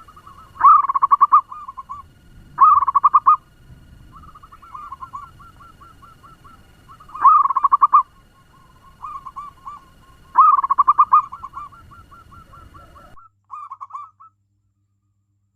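Zebra doves cooing: rapid, staccato trilled phrases, four loud ones with fainter cooing in between. The sound cuts off suddenly near the end after one last short phrase.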